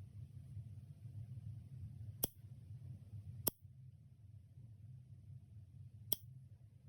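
Three sharp clicks from a small nail-care tool, spaced a second or more apart, over the steady low hum of a nail dust-collector fan.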